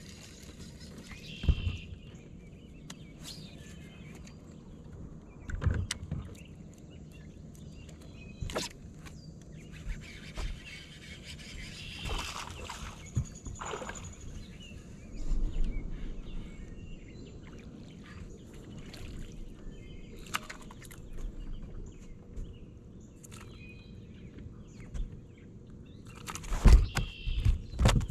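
Small fishing boat on the water: scattered knocks and clicks of gear against the hull over a low steady background, with a quick run of sharp clicks near the end.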